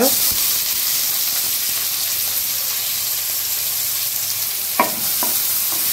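Chopped onions sizzling steadily in hot oil in a kadai, just after being tipped in, with a couple of short knocks near the end.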